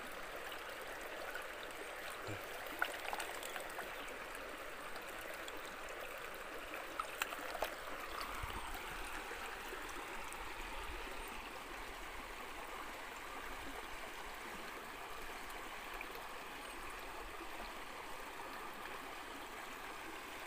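Steady rush of river water flowing over rocks, with a few light clicks and knocks about three and seven seconds in.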